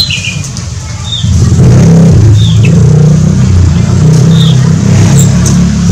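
Several short, high bird chirps, a second or two apart, over a loud low hum that grows louder about a second in.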